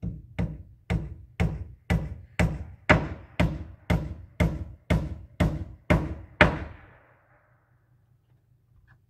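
Hammer striking wood framing, about fourteen steady blows at roughly two a second, then stopping.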